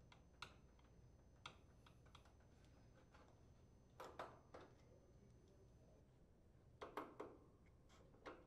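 Quiet, scattered clicks and taps of a Phillips screwdriver and fingers working the screws on a slide-in range's metal control panel, with small clusters of clicks about four and seven seconds in.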